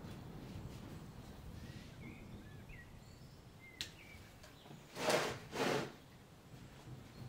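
Faint short bird chirps over a low steady background hum. About five seconds in come two short, loud noisy swishes as the potted Japanese maple bonsai is handled and shifted.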